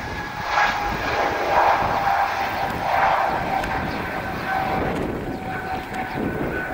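Airbus A220 airliner's Pratt & Whitney geared turbofans at takeoff thrust as it lifts off and climbs away: a rushing jet noise with a steady high whine over it, loudest between about half a second and three seconds in.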